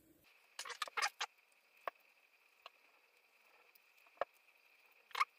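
Small clicks and scrapes of a laser sight's mount being handled and unscrewed by hand: a few short, sharp ticks at irregular intervals, a cluster about a second in and single ones later.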